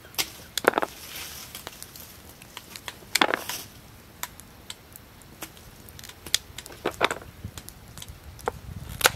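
Knife cutting carrots on a small cutting board: irregular sharp knocks of the blade through the carrot onto the board, a few of them louder.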